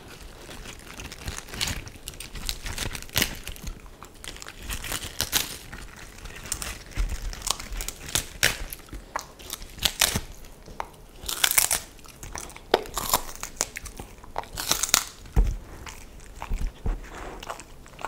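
A Samoyed biting and chewing raw pak choi close to the microphone: a run of irregular, crisp crunches as the stalks and leaves break.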